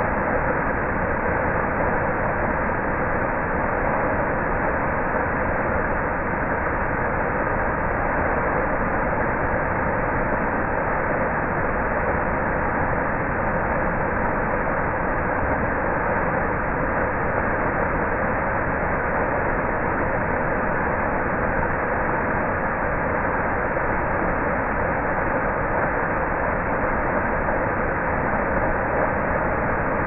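Waterfall: water pouring over a rock ledge into a pool, a steady rushing noise that does not change.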